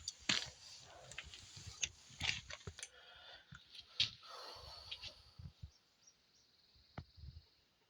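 Handling noise: scattered light clicks, knocks and rustling, with one sharper click near the end.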